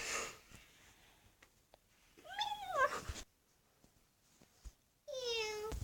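A girl imitating a cat, meowing: a rising-then-falling meow about two seconds in, and another near the end that drops and then holds its pitch.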